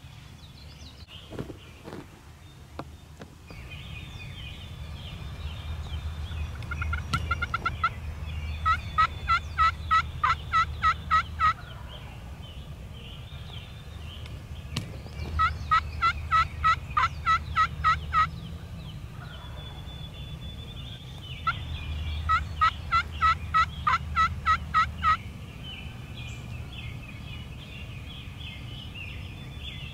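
Turkey yelping: three runs of about ten evenly spaced yelps each, roughly three or four a second, some six seconds apart. A few soft knocks sound near the start.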